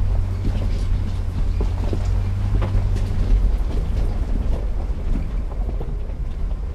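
A vehicle driving slowly over a rough gravel road: a steady low engine drone with scattered clicks and knocks from the stones under the tyres.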